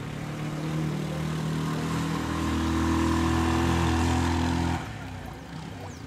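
A motor vehicle's engine running steadily and growing louder as it draws near, then cutting off abruptly about five seconds in, leaving quieter street ambience.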